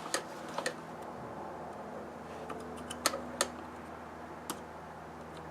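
Sharp clicks and taps of hand tools against small metal parts as a carburetor is taken apart, about six in all, two of them close together a little past three seconds, over a steady low hum.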